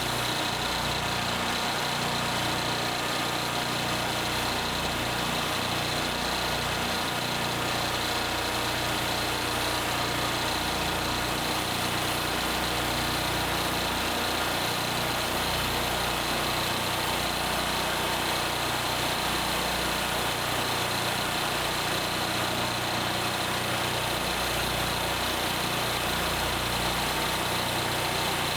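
An engine idling steadily, with an even, unchanging note.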